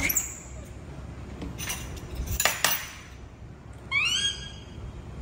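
Ladle and spoons clinking against ceramic soup bowls a few times, then a baby monkey gives one short high-pitched call that rises and then holds, near the end.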